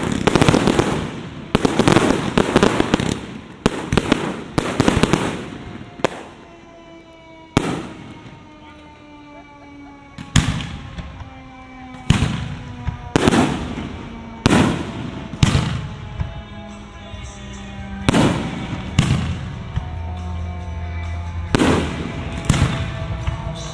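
Aerial fireworks shells bursting. A rapid run of booms and crackles comes first, then a short lull, then single booms about every second, each trailing off in echo.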